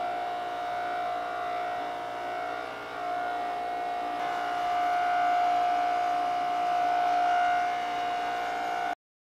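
Bench grinder running with a cloth plastic-polishing wheel buffing a plastic panel: a steady whine that swells a little as the panel is pressed on, then cuts off suddenly near the end.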